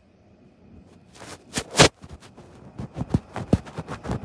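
Close-up handling noise of a camera being fiddled with: a loud rub about two seconds in, then a string of small clicks and knocks.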